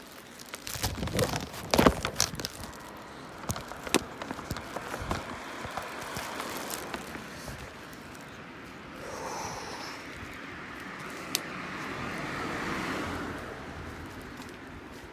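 Footsteps walking on a pavement with sharp knocks and rustling near the start, and a car going by on the road, loudest about twelve seconds in before fading.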